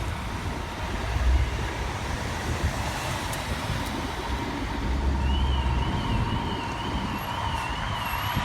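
Fire engine responding: a low engine and road rumble with a steady high tone. About five seconds in, a faint electronic siren starts a fast yelp, its pitch wavering up and down two or three times a second.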